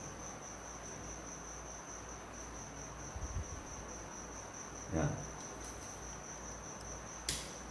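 A steady, high-pitched insect trill runs throughout. Over it, a red wire is handled and pushed into a plastic wall switch plate, with a few small ticks, a soft knock about five seconds in and a sharper click near the end.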